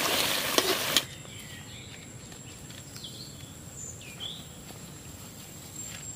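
Fish curry bubbling and sizzling in a kadai for about a second, with a scrape or two of the spatula, then it stops suddenly. After that, quieter outdoor ambience: a steady high-pitched insect drone with a few short bird chirps.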